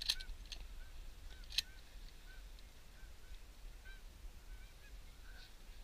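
Geese honking faintly in a steady irregular series of short calls, with a few sharp clicks, the loudest about a second and a half in.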